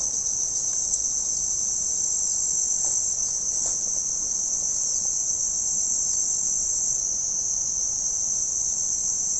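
A steady, high-pitched insect chorus: a continuous shrill trill that does not break or change.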